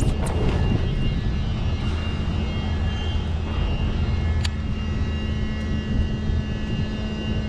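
A steady low motor drone, with a short sharp click about four and a half seconds in.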